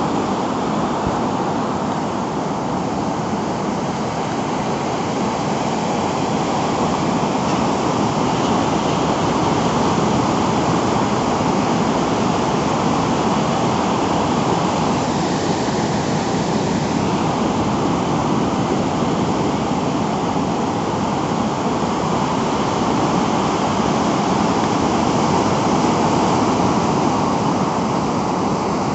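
Heavy hurricane-driven ocean surf breaking, a continuous loud rush of water that swells and eases only slightly.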